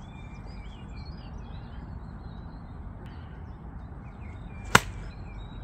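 A 52-degree wedge striking a golf ball: one sharp click near the end. Birds chirp throughout over a steady outdoor background.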